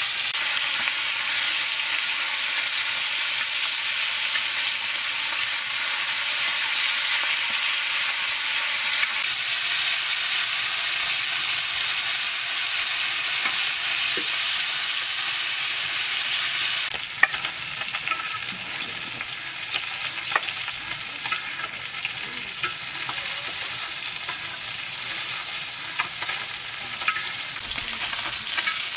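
Fish frying in shallow oil in a flat black metal pan, a steady sizzle. A little past halfway the sizzle turns quieter, and a metal spatula taps and scrapes against the pan as the pieces are turned and lifted out.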